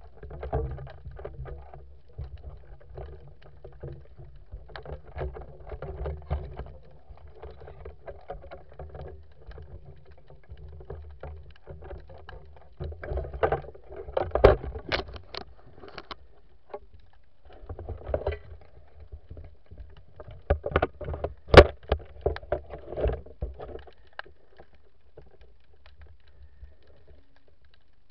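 Muffled water movement picked up through an underwater camera housing, with scattered sharp clicks and knocks. The knocks come in two clusters, the sharpest about three quarters of the way in.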